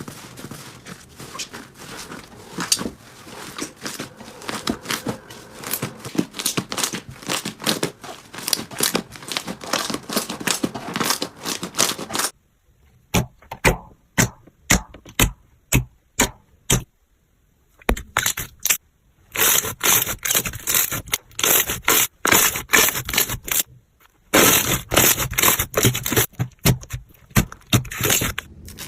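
Slime being squeezed and pressed, giving fast runs of crackling and clicking pops. The clicking thins to a few scattered pops about twelve seconds in, then returns dense and crisp from about eighteen seconds, with a brief pause near the end.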